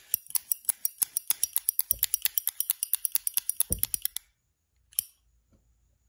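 Zippo lighter shaken hard with its lid shut, giving a fast, even metallic rattle of about eight clicks a second for some four seconds, with a couple of duller knocks. About a second later comes one more click as the lid is flipped open. The insert is held in the case by a piece of plastic bag, the 'bag trick'.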